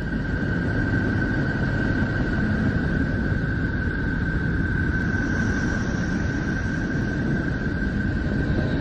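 Sonified space recording, spacecraft radio signals converted into audio: a steady low noise with one steady high tone held over it.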